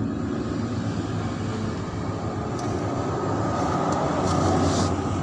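A large vehicle engine running steadily with a continuous low rumble, plus a few faint light clicks in the second half.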